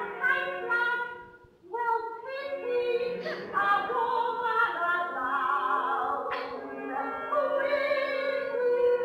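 Woman singing a Broadway musical number live with pit orchestra accompaniment, heard on an audience tape that lacks the highest frequencies. The singing and playing break off briefly about a second and a half in, then resume.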